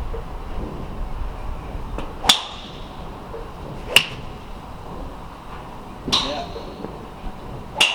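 Golf club heads striking balls: four sharp cracks about two seconds apart, each with a brief metallic ring.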